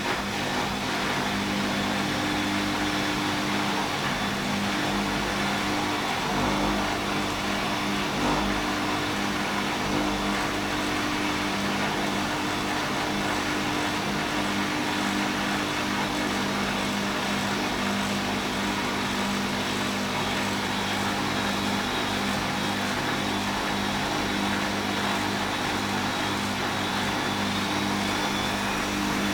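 Bosch WFL1611 front-loading washing machine spinning after the prewash: a steady hum and whine from the motor and rotating drum, holding one speed.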